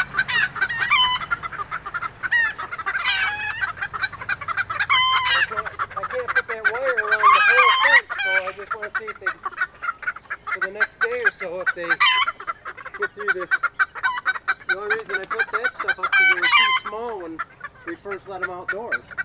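A flock of chickens clucking and squawking, with many birds' short calls overlapping in a continuous chatter.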